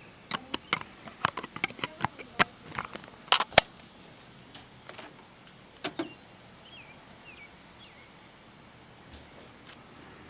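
Irregular sharp clicks and clacks of small hard objects being handled, about a dozen in the first four seconds, then only a few faint ones.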